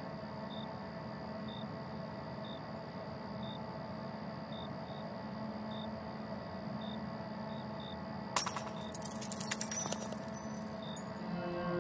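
Low steady hum with a faint high tick about once a second. About eight seconds in, a sudden burst of metallic jingling and clinking lasts a second or two. A low musical drone begins near the end.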